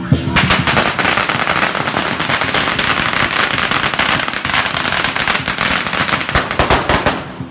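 A long string of firecrackers going off, a rapid, unbroken rattle of pops for about seven seconds that starts about half a second in and stops just before the end.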